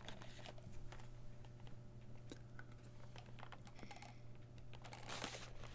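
Faint scattered clicks and light rustles from a box of chocolates being handled, over a steady low hum.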